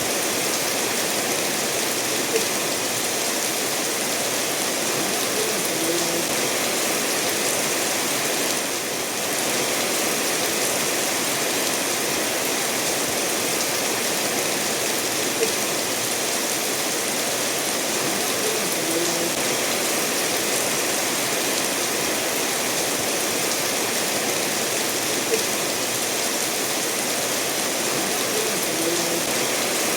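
Steady rain mixed with a stream running over stones, an even unbroken wash of water sound with a few faint short plinks.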